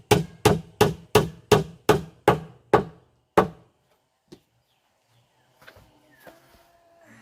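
A sound-test track played loud through 15-inch loudspeaker boxes: a run of sharp, evenly spaced knocks, about three a second, that stops about three and a half seconds in, followed by faint wavering sustained tones near the end.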